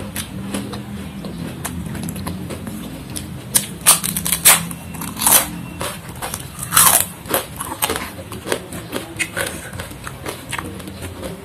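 Close-up eating sounds: teeth biting and crunching through a crisp fried cracker, with a run of loud, sharp crunches in the middle, then softer chewing. A steady low hum runs underneath.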